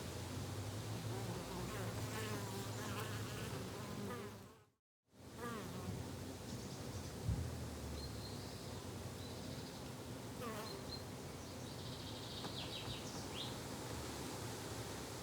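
Flying insects buzzing steadily in a garden, with a few short high bird chirps in the second half. The sound cuts out completely for a moment about five seconds in, and there is a single brief knock a couple of seconds later.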